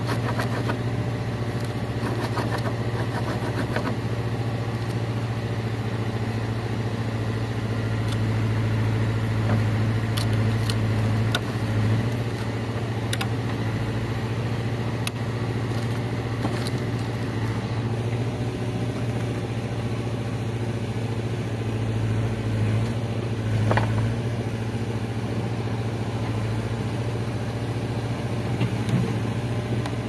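Motor vehicle engine running steadily, a constant low hum with a few short ticks.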